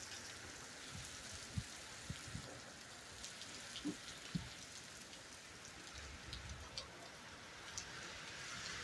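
Steady, fairly quiet rainfall hiss, with scattered sharp taps of raindrops hitting close to the microphone.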